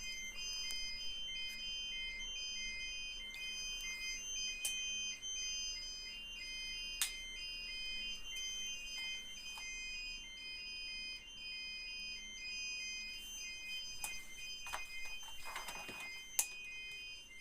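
Fire alarm equipment in alarm: several high electronic beeps at different pitches, each pulsing on and off about once a second and out of step with one another. A few sharp clicks are heard over it.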